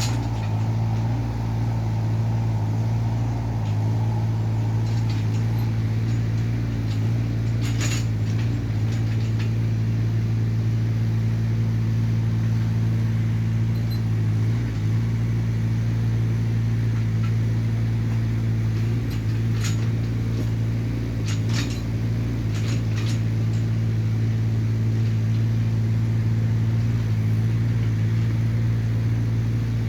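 Hyundai mini excavator's diesel engine running at a steady, unchanging speed. A few short sharp clicks or clinks come over it, one about eight seconds in and a cluster a little past twenty seconds.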